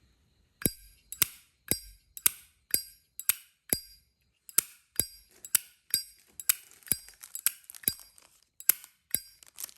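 A chrome-plated brass 1981 Zippo lighter's lid is flicked open and snapped shut over and over. Each move gives a sharp metallic click with a bright ring, about two a second, with a short gap near the middle.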